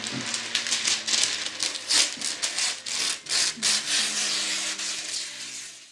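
Dry rattling and rustling in irregular strokes, like a shaker, over faint sustained low tones, fading out at the end.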